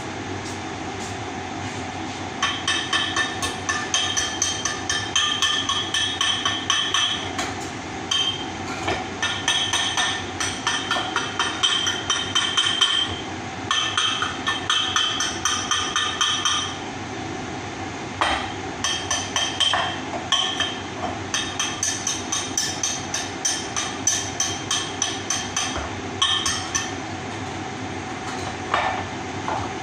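Hand hammer striking a metal pump pipe guide: runs of quick ringing metallic blows, several a second, broken by short pauses, with two last single blows near the end. A steady mechanical hum runs underneath.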